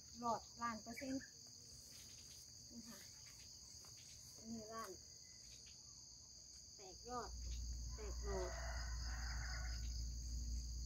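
Steady high-pitched insect chorus, two even tones that run without a break. A few short pitched calls sound over it near the start and again mid-way, and a low rumble comes in about seven seconds in.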